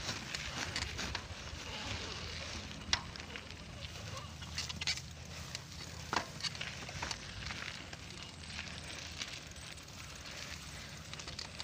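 Footsteps along a grassy dirt path, with grass rustling and crackling and a few sharp clicks over a steady low rumble.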